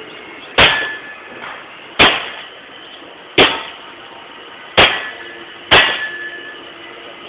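Five hard blows, roughly one every second and a half, each a sharp crack with a brief metallic ring, as a long-handled tool is swung down onto an object on the ground to smash it.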